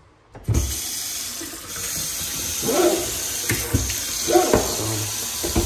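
Kitchen faucet turned on about half a second in, then water running steadily into a stainless steel sink, with a few short knocks.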